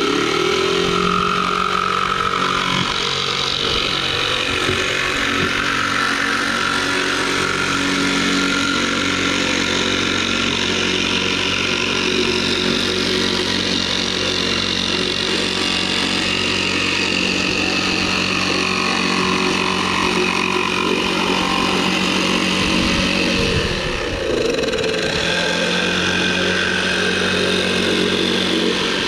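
Electric jigsaw cutting a marked profile out of a plywood board: the motor runs steadily as the blade saws through the wood. It eases off briefly about two-thirds of the way through, then carries on cutting.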